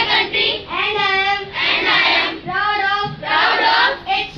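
A group of children chanting a pledge in unison, in drawn-out sing-song phrases.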